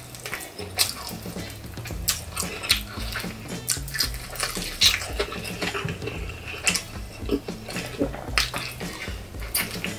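Close-miked chewing of crispy fried chicken: a steady run of crackly crunches and wet mouth sounds, with soft background music underneath.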